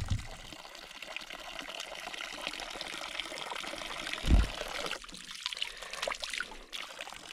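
Water trickling and pouring steadily out of the end of a long gravity-fed water line from a creek, a weak flow rather than full blast because the creek is low and the line has a chewed leak. A single low thump about four seconds in.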